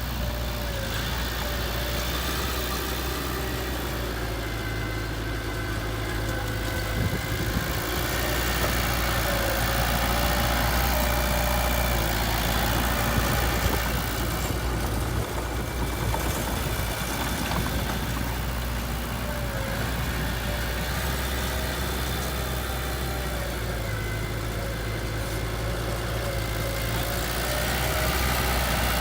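Heavy-equipment diesel engine running steadily near idle, swelling a little in loudness for a few seconds in the middle.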